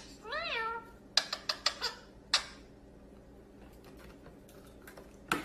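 Indian ringneck parakeet giving one short call that rises and falls in pitch. About a second later comes a quick run of sharp clicks and knocks, with another just after two seconds and one near the end, as plastic water bottles are knocked about on a glass tabletop.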